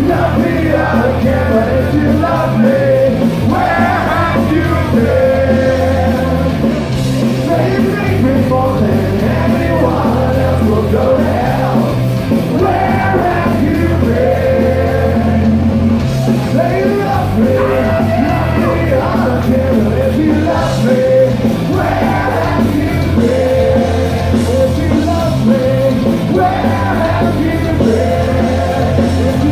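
Ska-punk band playing live with singing, recorded loud from within the crowd: a steady full-band beat and bass under held vocal and instrument lines.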